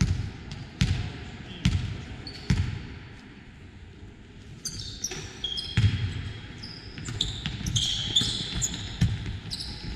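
Basketball game: a ball is dribbled four times, a bit under a second apart. From about halfway through, sneakers squeak sharply on the court floor among further bounces.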